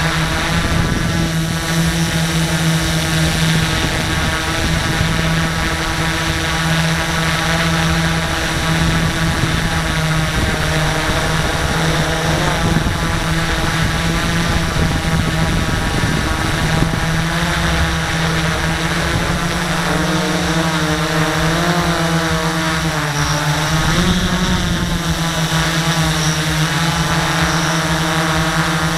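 X650 quadcopter's electric motors and propellers running in flight, heard close from the camera on board: a loud, steady multi-tone drone whose pitch wavers and shifts up and down in the second half as the throttle changes.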